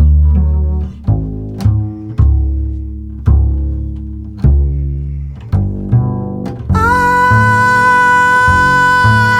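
Jazz double bass playing a plucked solo line, each low note sounding sharply and then ringing out. About two-thirds of the way in, a long steady held note comes in over the bass.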